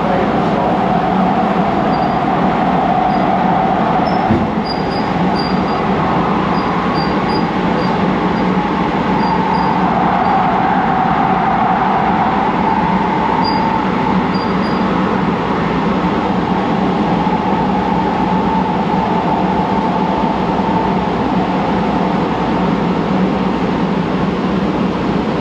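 Siemens P2000 light rail car running at speed, heard from inside: a steady rumble and hiss of wheels on the rails with a wavering tone over it, and a single knock about four seconds in.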